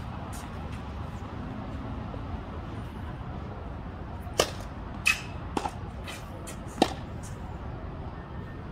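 Tennis serve: a sharp pop of racket strings on the ball a little over four seconds in, followed by three more sharp ball knocks over the next two and a half seconds, over a steady low background rumble.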